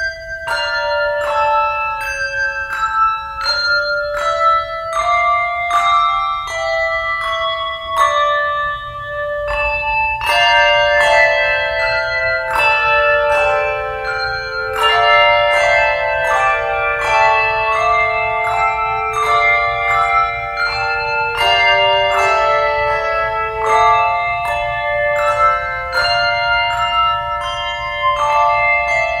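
Music played on tuned bells: struck notes ring on and overlap, a melody of single notes at first, then fuller with several notes sounding together from about ten seconds in.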